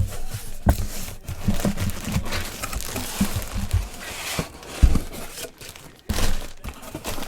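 Packaging being handled and unwrapped: irregular crinkling and rustling with a few sharp knocks.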